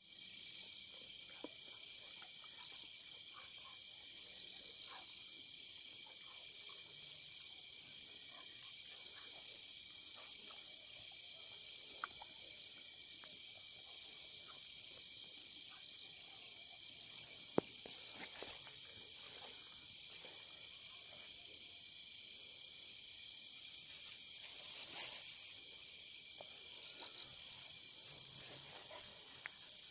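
Chorus of night insects such as crickets: a steady high trill that swells in an even pulse about three times every two seconds.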